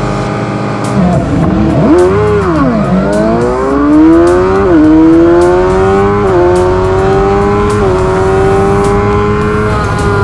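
2007 Suzuki GSX-R600's inline-four engine launching from a standing race start: revs held high on the line, rising and sagging as the clutch bites about a second in, then climbing steadily under full throttle. The pitch drops briefly with each quick upshift, at about four and a half, six and eight seconds.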